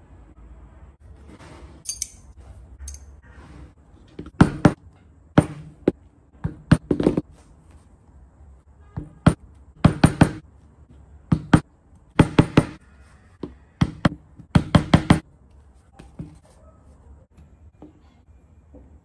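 Rubber mallet striking a stack of leather pieces on a wooden board: a series of sharp, dull knocks, single and in quick groups of two or three, from about four seconds in until about fifteen seconds in.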